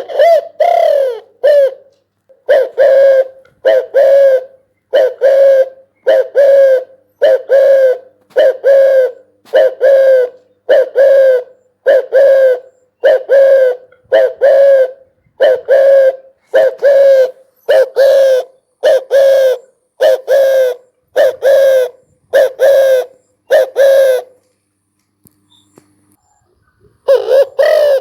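Spotted dove cooing: a steady series of about twenty short coos, roughly one a second. They stop about 24 seconds in, and one more coo comes near the end.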